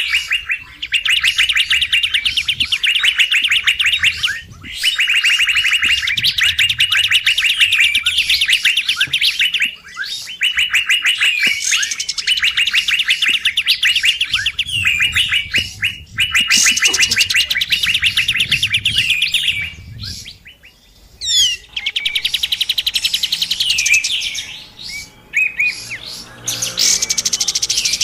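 A kapas tembak lure recording: agitated, rapid chattering trills in bursts of a few seconds, separated by short breaks. These calls are meant to draw wild kapas tembak in.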